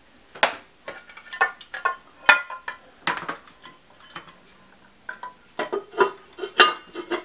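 Ceramic pet fountain parts clinking and knocking as they are handled and the ceramic top with its faucet spout is set back onto the bowl: a string of sharp clinks with short ringing, the loudest ones near the end.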